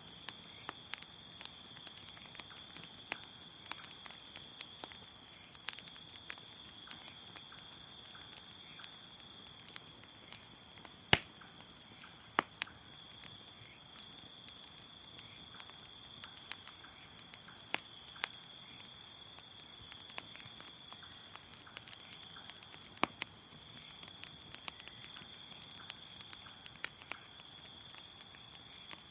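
Crickets chirping steadily in a continuous high trill, over a crackling wood fire giving scattered pops and snaps, the loudest about eleven seconds in.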